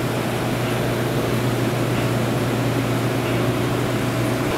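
Machinery running: a steady, even hum with a strong low drone and a few fainter steady tones above it.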